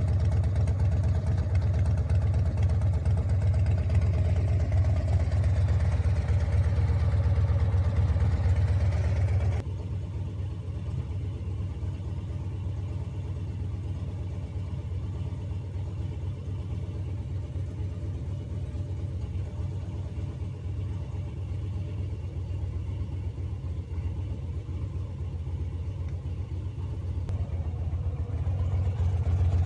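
Harley-Davidson V-twin engine running steadily with a deep low rumble. The level drops suddenly about ten seconds in, stays even, and grows louder again near the end.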